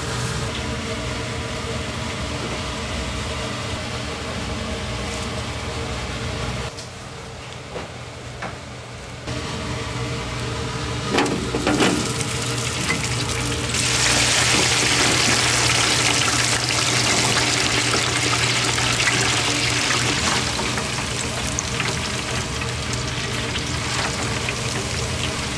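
Battered food frying in a commercial deep fryer: a loud, dense sizzle starts about halfway through as the pieces go into the hot oil, and keeps up to the end. Before it there are a few metal clanks of tongs and the stainless basket, over a steady low hum of kitchen equipment.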